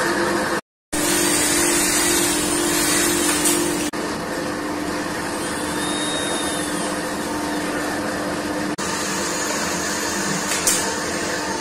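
A steady mechanical drone with a constant hum, like a motor running, and a single sharp knock near the end.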